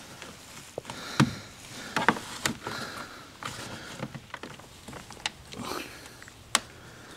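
Irregular clicks and light knocks of a stainless-steel mesh radiator grille being pushed and clipped into a car's plastic front bumper intake, with soft rustling in between. The sharpest click comes near the end.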